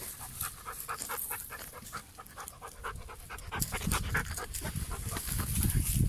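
A dog panting quickly and evenly, with low thumps and rustling from walking through dry undergrowth in the second half.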